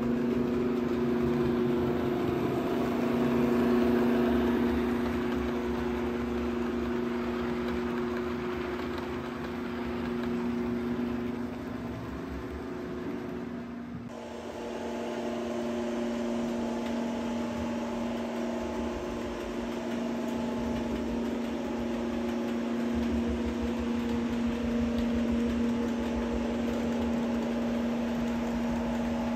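Model railway locomotive running on the layout: a steady hum with several held tones, which changes abruptly about fourteen seconds in.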